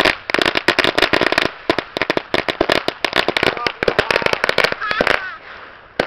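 A string of firecrackers going off in a rapid, irregular chain of sharp bangs that stops about five seconds in.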